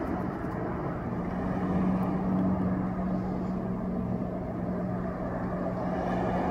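A steady low mechanical hum over an even background rush of noise.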